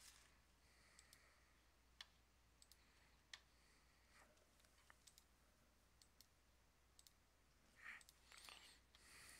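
Faint computer mouse clicks, a dozen or so scattered irregularly through near silence, with a short soft noise near the end.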